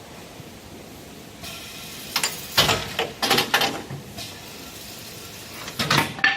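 CNC wood turning lathe running with a steady mechanical noise, broken by two spells of loud clattering knocks, the first about two seconds in and the second near the end.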